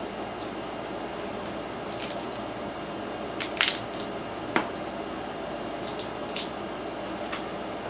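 Crab being eaten close to the microphone: wet squishing and smacking, with a few sharp cracks of shell, the loudest a little past three and a half seconds in.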